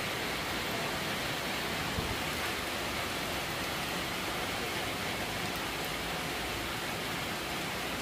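Rain falling steadily on flooded ground and standing water, an even hiss, with one faint knock about two seconds in.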